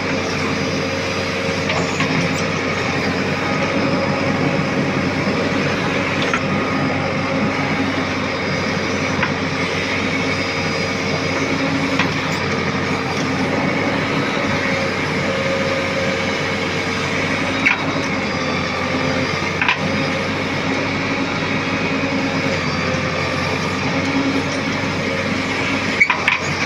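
JCB backhoe loader's diesel engine running steadily under work, with a few short sharp clanks now and then.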